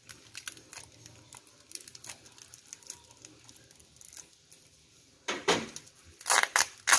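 Scissors snipping and plastic packing tape crinkling as a tape-wrapped parcel is cut open, with a few louder rips and crinkles of the tape being pulled apart by hand near the end.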